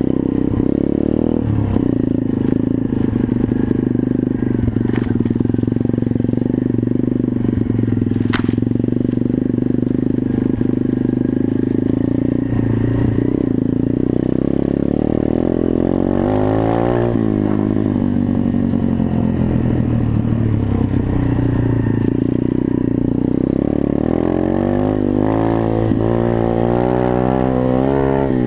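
Single-cylinder four-stroke engine of a 125cc Welsh Pit Bike running under load off-road, its revs rising and falling, with two sharp clicks in the first third.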